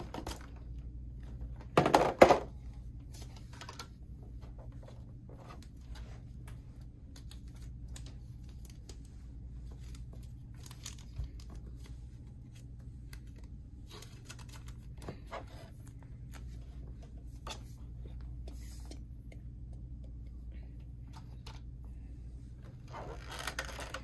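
Rigid clear plastic packaging tray of a Pokémon card collection being handled and pried open: scattered clicks, taps and crinkles of the plastic, with one loud crackling snap about two seconds in and denser crinkling near the end. A steady low hum sits underneath.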